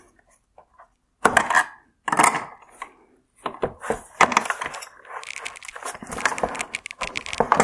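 Needle-nose pliers prying the high beam reflector off its plastic mounts inside a xenon headlight housing: two sharp plastic cracks about a second apart, then a longer run of rapid clicking and scraping of plastic and metal.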